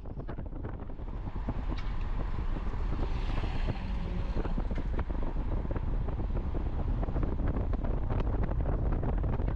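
Wind buffeting the microphone: a steady low rumble with crackles that grows louder over the first few seconds.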